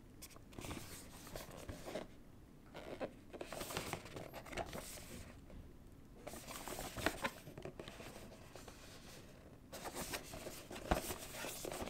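Cardboard processor box being handled and turned over bubble wrap: rustling and crinkling in four bursts with short pauses, and a few sharp clicks of the box against fingers or plastic.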